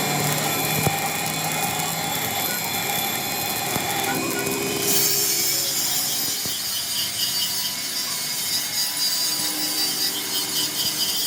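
A tool working on metal, a steady scraping, cutting sound that turns harsher and hissier about five seconds in.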